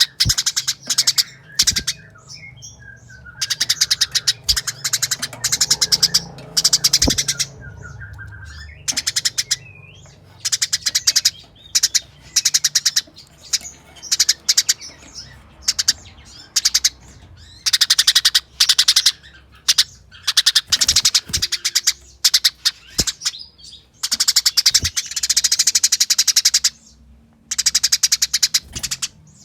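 Eurasian tree sparrow giving rapid, densely packed chattering calls in repeated runs of about one to two seconds with short pauses between: the agitated, fighting chatter of an aroused male.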